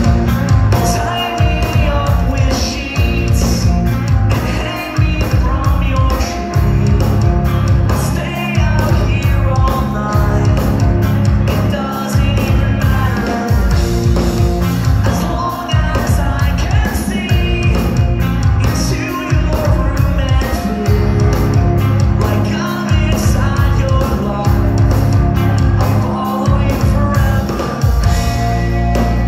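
Post-hardcore band playing live: distorted electric guitars, bass and a steady drum beat, with a singer's vocals over them.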